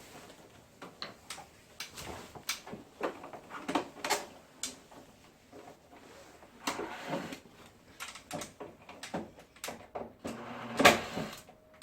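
Irregular clicks and knocks of hard plastic parts being handled, with two stretches of scraping, as a wall-mounted air conditioner is worked on; the loudest knock comes near the end.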